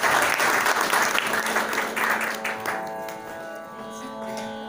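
Audience applauding after a Carnatic song, dying away about three seconds in and leaving a steady held musical drone.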